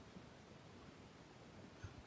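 Near silence: faint room tone, with one soft low tick near the end.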